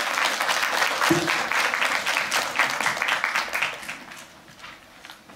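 Audience applauding, many hands clapping at once, dying away over the last second or so.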